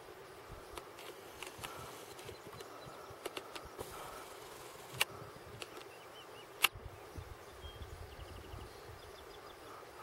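Faint outdoor background with a steady low hum, broken by two sharp clicks about five and six and a half seconds in, the second the louder.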